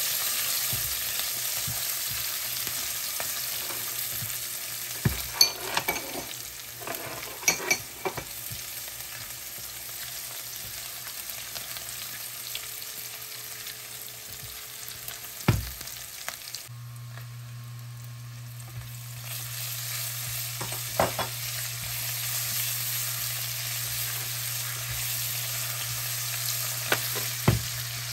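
Chopped garlic, cumin and dried red chillies sizzling in hot oil in a nonstick pan for a tadka, stirred with a silicone spatula that knocks against the pan now and then.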